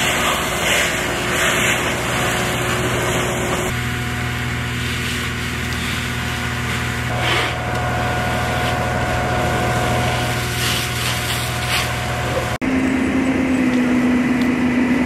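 An engine running steadily under the hiss of a fire hose spraying water onto a burning car. About twelve and a half seconds in, the engine sound changes abruptly to a different, higher steady drone.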